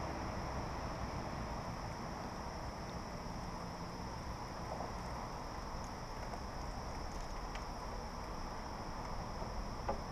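Steady high insect chorus from the waterside vegetation, over a low rumble of wind on the microphone. A few faint clicks, one near the end.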